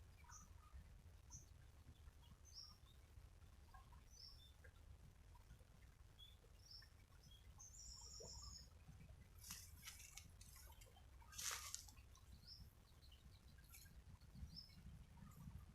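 Near silence with faint, scattered bird chirps, short high calls every second or so and a quick double trill about halfway through. Two brief rustles come a little after the middle, over a low background rumble.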